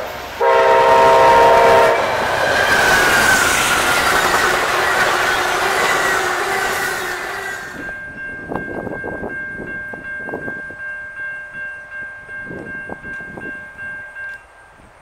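Locomotive air horn blowing a chord, then the loud rush of a train passing close by. After that the cars roll past with rail-joint clicks and a steady high squeal, which cuts off shortly before the end.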